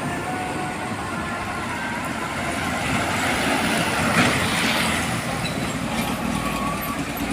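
Heavy truck passing on the highway, its engine and tyre noise swelling to a peak about four seconds in and then easing off.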